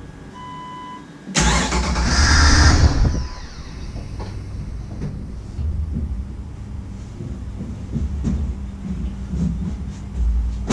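A short beep, then the Jeep Wrangler TJ's 4.0-litre inline-six cranks and fires about a second and a half in. It revs for a couple of seconds before settling to a steady idle. This is the first start after a new ignition coil cured a crank, no-start condition.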